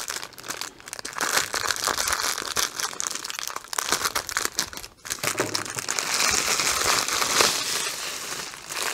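Plastic poly mailer crinkling and rustling as it is cut open with scissors. After a brief pause about halfway through, there is a fuller stretch of rustling as the plastic-wrapped kits are pulled out of the bag.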